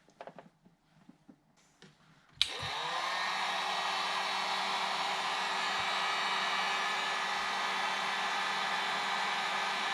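A few faint light clicks, then about two and a half seconds in a heat gun switches on with a click. Its fan motor spins up quickly to a steady whine over a constant rush of blown air and keeps running.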